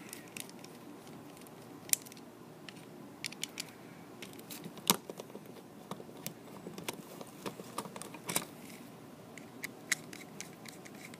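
Scattered small clicks and ticks of a screwdriver backing out the terminal screws on a wall light switch, with metal tool and switch handling.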